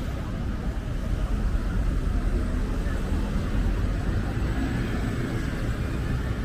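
City street traffic: vehicle engines and tyres making a steady low rumble, a little louder from about a second in.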